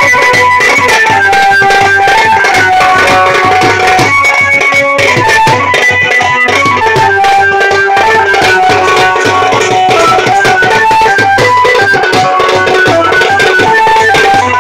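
Loud Indian-style dance music: fast drumming under a melody of held notes that step up and down, playing without a break.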